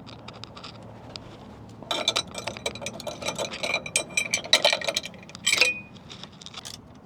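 Metal hand tools clinking and rattling, a rapid run of sharp clicks and clinks with one brief metallic ring, as wrenches and sockets are handled during alternator replacement on a semi truck.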